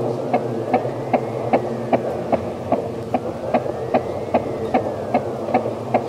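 Ceiling fan running: a steady hum with a regular tick about two and a half times a second, and a faint high tone that slowly rises and falls.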